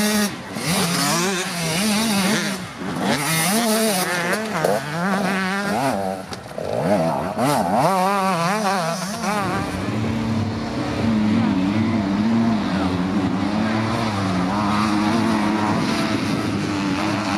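Enduro motorcycle engines revving up and down in quick bursts as riders work the throttle through the course's obstacles. From about halfway through, a steadier engine note takes over.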